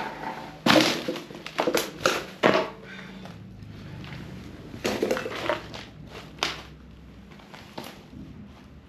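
Footsteps crunching over debris on the floor of a gutted building: a few irregular crunches and scrapes, thickest in the first three seconds, then a couple more about five and six and a half seconds in.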